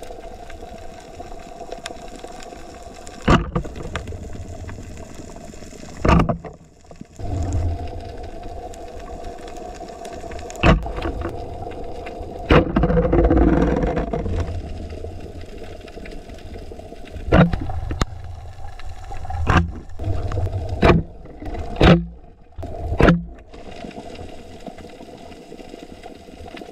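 Muffled underwater recording of a steady mechanical engine drone, with about nine sharp knocks spread through it and a brief noisier rush about halfway.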